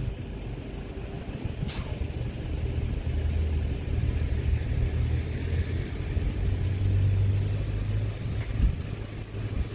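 Low, steady rumble of a passing motor vehicle. It swells to its loudest about two thirds of the way through and eases off near the end.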